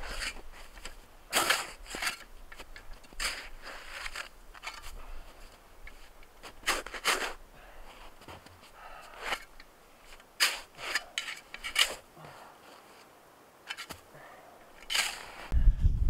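Crunching, scraping strokes in hard, wind-packed snow, about a dozen at irregular spacing, as snow is cut and dug for blocks and a trench. A low rumble sets in near the end.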